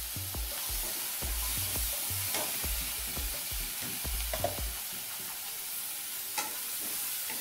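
A spatula scraping and knocking against a kadhai while stirring potatoes, paneer and green chutney frying in butter and oil, over a steady sizzle. The stirring strokes come thick and fast for the first five seconds or so, then thin out, leaving mostly the sizzle and a single knock near the end.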